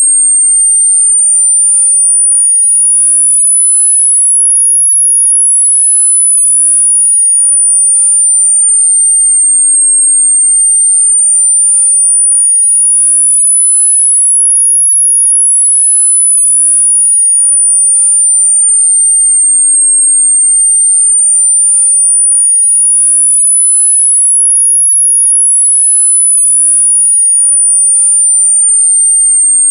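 Tinnitus-masking sweep: a single very high-pitched pure sine tone gliding slowly up and down, rising and falling about once every ten seconds, three times over, at a steady level.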